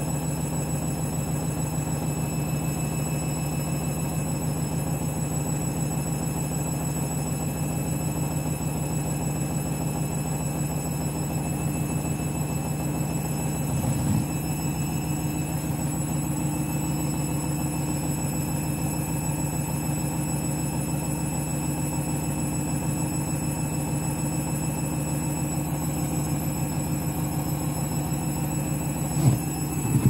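Candy Grand'O Vita front-loading washing machine on its 400 rpm final spin with a duvet load: a steady motor and drum hum, with a brief louder swell about halfway through. The load is running a bit unbalanced.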